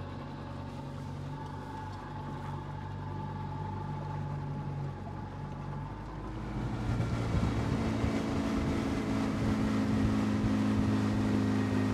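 Tiller-steered outboard motor on a small aluminium boat running at low speed, then throttled up about six and a half seconds in, getting louder and higher in pitch as the boat picks up speed.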